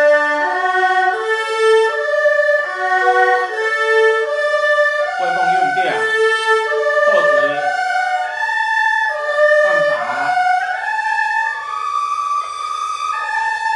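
Erhu bowed through a broken-chord sequence exercise: quick arpeggio notes moving step by step up and down the scale, with a few quick sliding glides in pitch.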